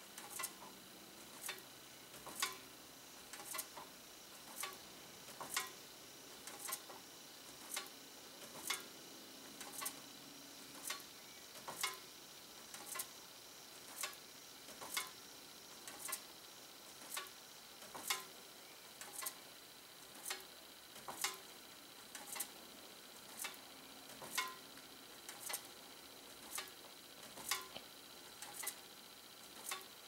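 Slow-turning box fan's blades brushing a foil-covered paper tag, making a light tick about once a second. Each tick is a blade grazing the contact that closes the circuit and flashes the bulb.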